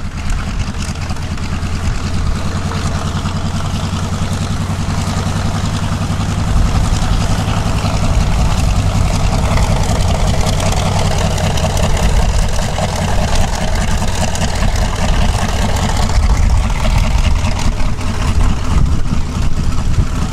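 Grumman TBM Avenger's Wright R-2600 fourteen-cylinder radial engine running at taxi power as the plane taxis past, a steady low rumble that grows louder about six seconds in as it comes closer.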